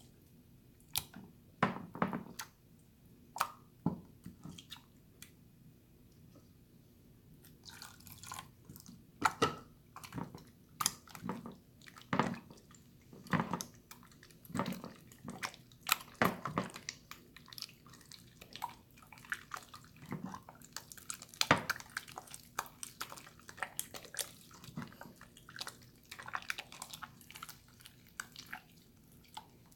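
Watery slime being squished and worked by hand: irregular wet squelches, pops and clicks, a few scattered at first and coming thick and fast from about eight seconds in.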